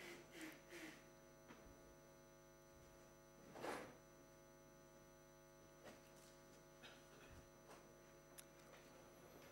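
Near silence with a steady electrical mains hum made of several constant tones. About three and a half seconds in there is a short hiss-like noise, and a few faint ticks.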